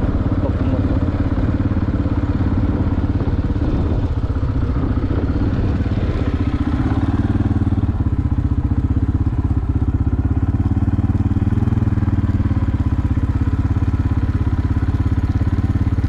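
A small engine running steadily at an even pace, its rapid firing pulses continuous throughout.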